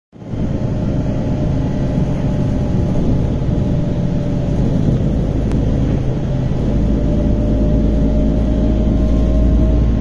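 City bus driving along, heard from inside the cabin: a steady low rumble of engine and road with a faint steady whine over it. The low rumble grows heavier about two-thirds of the way through.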